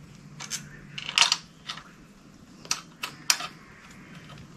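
Scattered sharp metallic clicks and clinks of hand tools and bolts being worked loose, the loudest a cluster about a second in.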